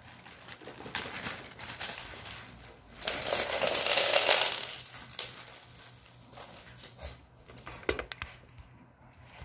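Small metal screws and nuts clinking and rattling inside a plastic hardware bag as it is handled, with a louder stretch of rattling and crinkling about three seconds in, lasting a second and a half.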